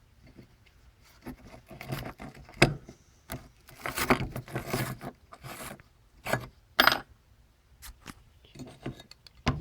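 Small hard parts being handled and worked by hand: irregular clicks, scrapes and rubbing, with a couple of sharp knocks about a third of the way in and again about two-thirds through.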